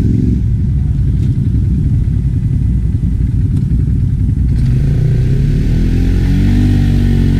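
ATV engine running loudly, then revving up with a rising pitch from about halfway through.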